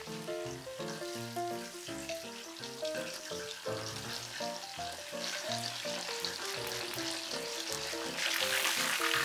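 Battered pork pieces deep-frying in a wok of hot oil, with a steady sizzle and bubbling that gets noticeably louder about eight seconds in. Light background music of short melodic notes plays throughout.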